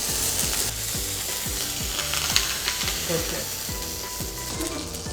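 Chicken searing in butter in a hot pan, sizzling steadily.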